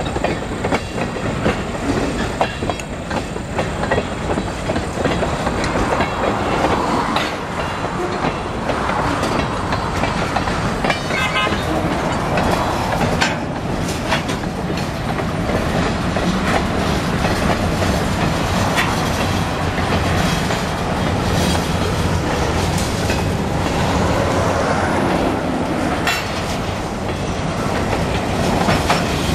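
Freight train tank cars and covered hopper cars rolling past at close range. A steady wheel-on-rail rumble runs throughout, with repeated clicks as the wheels cross the rail joints.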